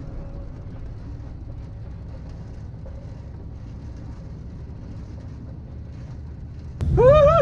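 Dirt-track race car engine heard from inside the cockpit, running at a low steady idle. Near the end it is revved hard, with a sharp rise in pitch.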